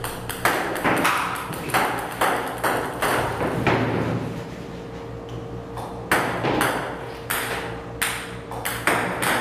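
Table tennis balls fired by a ping-pong robot clicking on the table in quick succession, about two or three a second, with a pause of about two seconds in the middle. A steady low hum runs underneath.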